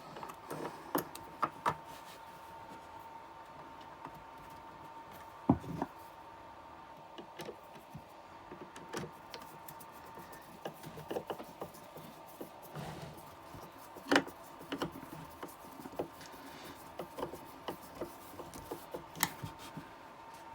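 Scattered clicks, taps and knocks of hinges being screwed by hand into a solid oak door, with two sharper knocks about five and fourteen seconds in. A faint steady hum sits underneath.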